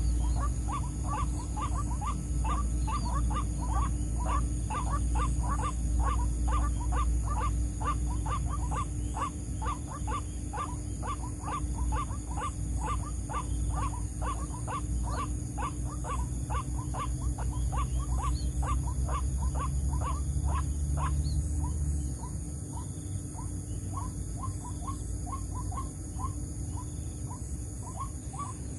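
White-breasted waterhen calls: a long, fast series of short, repeated croaking notes, about three a second, that grow fainter after about 21 seconds. A steady low rumble runs underneath and drops away at about the same point.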